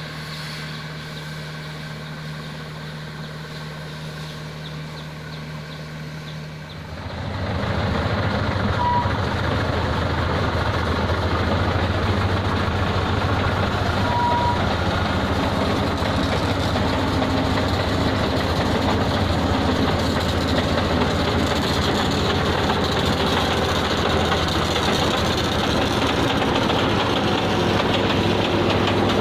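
Diesel engines of road-paving machinery running steadily; about seven seconds in the engine sound gets much louder and rougher. Two short beeps sound a few seconds apart.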